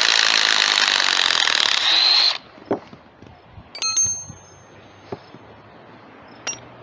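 Ryobi P235 18V quarter-inch impact driver hammering in reverse as it backs a 6-inch lag bolt out of wood, rising in pitch just before it stops abruptly about two seconds in. A few metal clinks follow as the steel bolts and screws are set down, one of them ringing briefly.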